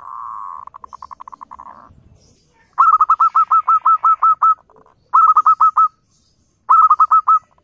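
Zebra dove (perkutut) cooing: a fast rattling trill for about two seconds, then three runs of quick staccato coos, about seven a second, the first run the longest.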